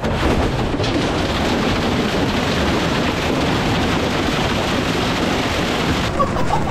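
Giant blender's spinning blades smashing wooden doors to splinters: a loud, continuous crashing and shredding racket. The noise thins about six seconds in.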